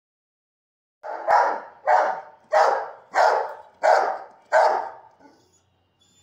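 Rottweiler barking: six barks in a steady run, starting about a second in.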